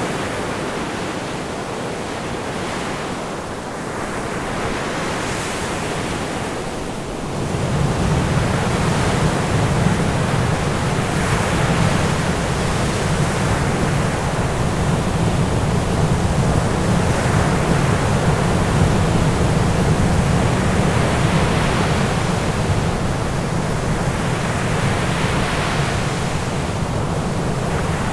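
Steady rushing noise like ocean surf, swelling and easing every few seconds. About seven seconds in, a deep low rumble joins and holds, making it louder.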